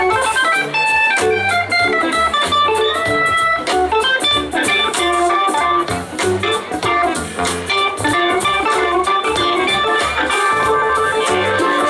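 Live band music: an electric guitar plays a lead line over Hammond organ and bass guitar, with the organ's held chords coming forward near the end.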